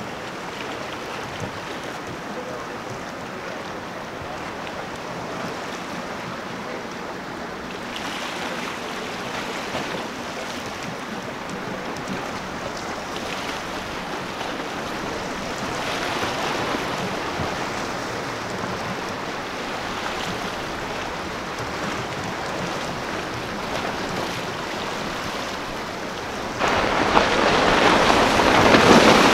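Steady wash of sea water and wind with a fast center-console boat running on outboard motors. The sound gets louder suddenly near the end as the boat comes close, throwing spray.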